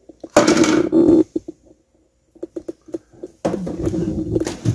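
Kitchen handling noise at a counter: two rough scraping rattles about a second each, one near the start and one near the end, with a few light taps between them.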